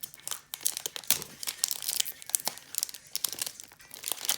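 Crinkling and tearing of a baseball card pack's plastic wrapper as it is worked at and pulled open by hand, a dense run of irregular crackles.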